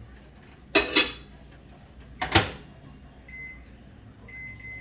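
Microwave oven being shut and set: a few sharp knocks of the door and handling, then short high keypad beeps as buttons are pressed.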